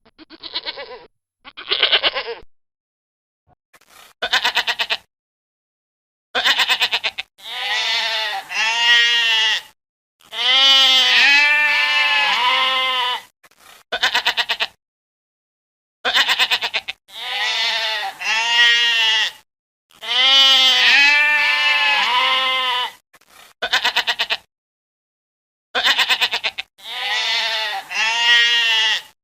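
Goats bleating: a string of loud, quavering calls, some short and some held for two or three seconds, broken by sudden silent gaps.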